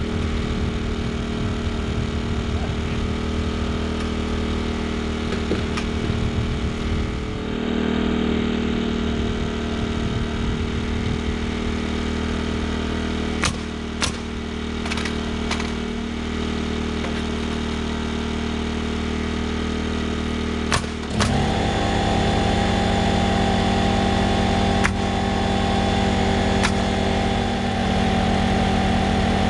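An engine running steadily, with a few sharp clicks or knocks partway through. A little over two-thirds of the way in its pitch changes abruptly and it gets louder.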